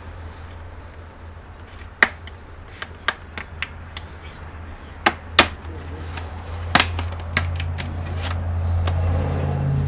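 Scattered sharp clicks and taps, about eight of them in the first seven seconds, from hand work on a laptop's case during disassembly, over a low steady hum that grows louder from about seven seconds in.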